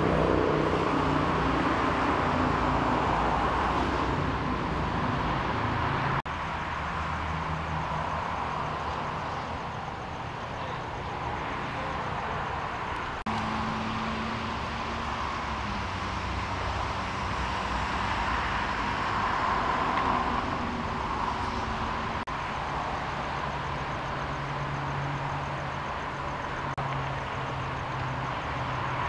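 Steady low hum of idling vehicle engines under a hiss of outdoor ambient noise. The pitch of the hum shifts at a few points.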